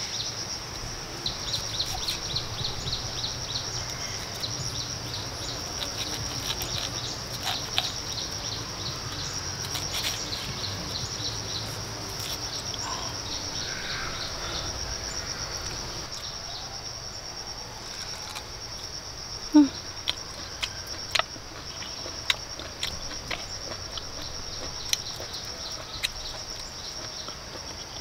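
Insects trilling steadily in a high, rapidly pulsing chorus, with scattered sharp clicks and taps in the second half.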